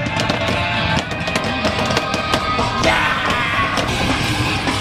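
Rock music with a driving drum beat.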